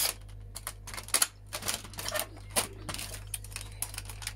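Irregular sharp clicks and taps of plastic casing parts and small screws being handled while a CD cassette player is being taken apart.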